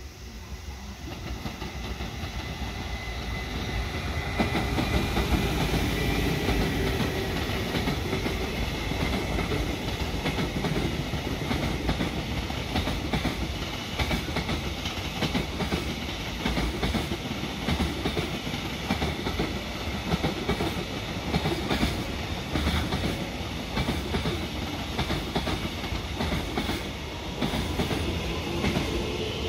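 JR Freight container train passing, its wheels clattering over the rail joints. The sound builds over the first few seconds as the locomotive draws near, then holds steady as the container wagons roll by.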